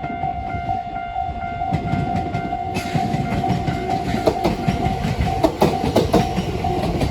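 Railway level crossing warning bell ringing in a steady, repeating pattern while a train runs over the crossing. The train's noise swells about three seconds in, and its wheels click over the rail joints.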